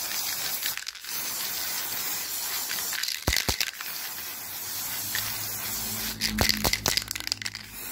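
Aerosol spray paint can hissing as paint is sprayed, with a short break about a second in. A few light knocks come a little after three seconds and again near the end.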